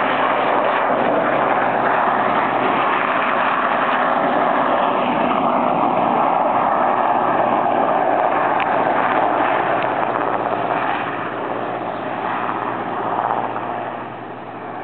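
Mountain rescue helicopter flying close by, a loud steady rotor and engine noise with a low steady hum, fading from about eleven seconds in as it moves away.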